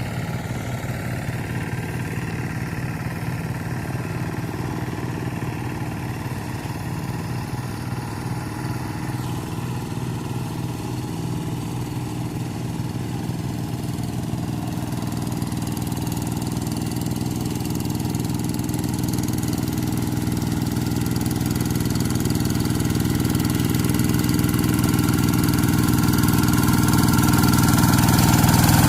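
Kubota RD85di single-cylinder diesel engine of a Quick TL800 two-wheel hand tractor running steadily. It grows gradually louder over the second half.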